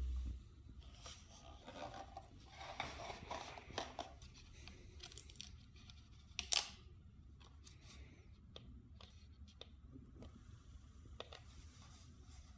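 Quiet handling noise from a cordless stick vacuum that is not running: faint rustling and small plastic clicks, with one sharper click about six and a half seconds in. A low rumble stops at the very start.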